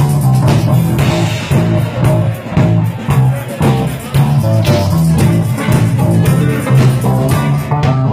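Live blues band jamming: electric guitar over drum kit and a strong, repeating low bass line, with a steady beat.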